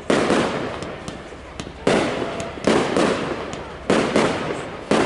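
Aerial fireworks bursting in quick succession, five bangs roughly a second apart, each trailing off in a rolling echo, with a few sharp crackles in between.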